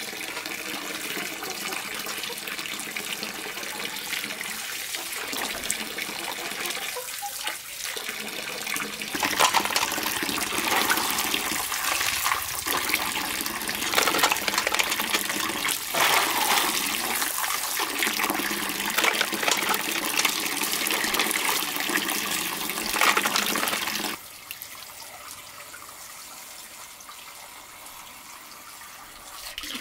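Water pouring from an overhead pipe into a full metal basin, with mussel and snail shells clattering against each other and against the metal as they are rinsed by hand and put into a steel pot. About 24 seconds in, the sound suddenly drops to a quieter, steady splash of running water.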